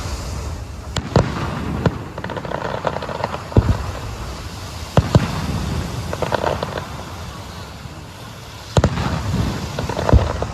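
Aerial fireworks bursting overhead: about seven sharp booms at uneven intervals, with crackling between them.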